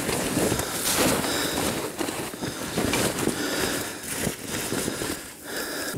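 Wind buffeting the camera microphone, mixed with the rustle of clothing and gear close by, in uneven surges.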